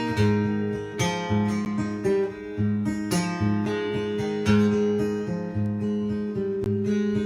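Acoustic guitar strumming chords in a steady rhythm, with no singing, as an instrumental passage of a song.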